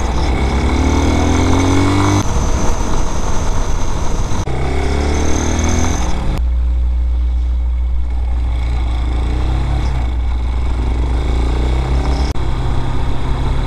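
Vitacci Raven 250 dual-sport motorcycle's 229cc air-cooled single-cylinder engine under way. It rises in pitch as it accelerates twice in the first six seconds, then runs steadily at cruising speed. The sound jumps abruptly a few times where the ride is cut.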